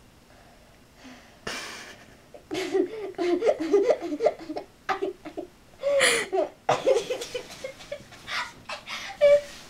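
A person laughing hard in a long fit: a breathy rush of air about a second and a half in, then rapid, choppy bursts of giggling, with a louder, higher-pitched burst near the middle.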